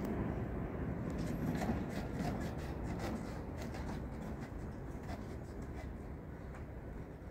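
Low rumbling noise with light rubbing and a scattering of small clicks, typical of a hand-held camera being carried and handled. The clicks come mostly in the first few seconds, and the rumble eases slightly towards the end.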